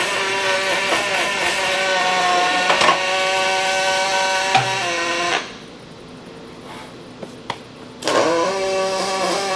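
OTC welding robot's pulse-welding arc running on a steel beam: a steady buzzing hum with a pitched drone, the "buzzing bee sound" of pulse welding. A little past halfway the sound drops away for about three seconds, with a couple of clicks, then the buzz starts again.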